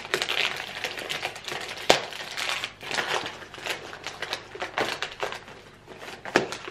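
Wrapping paper crinkling and tearing as a present is unwrapped by hand, with two sharp clicks, about two seconds in and near the end.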